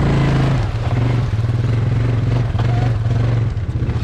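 Quad bike (ATV) engine running steadily, its pitch dipping briefly a few times.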